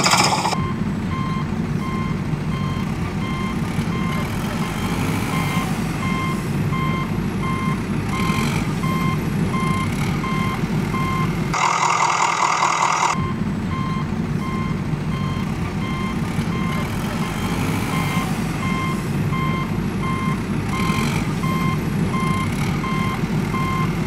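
Truck reversing alarm beeping at an even pace over a steady low engine rumble, with a short burst of hiss about halfway through.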